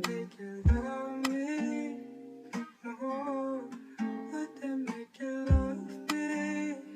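Background music led by guitar, with a melody line and a few deep low beats.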